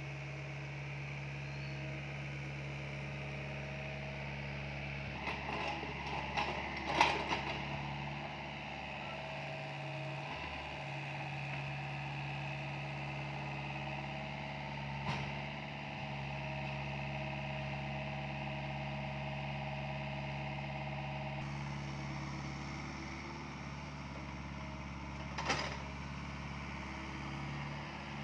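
SDLG mini excavator's diesel engine running steadily under digging load. A few sharp knocks break through, a cluster about seven seconds in and single ones near the middle and near the end.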